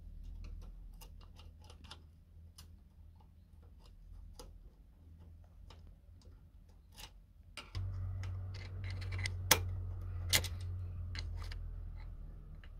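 Scattered small metal clicks and taps from pliers working a valve spring and its retainer in a lawnmower engine's valve chamber, with two sharper clicks in the second half. A low rumble comes in suddenly about eight seconds in.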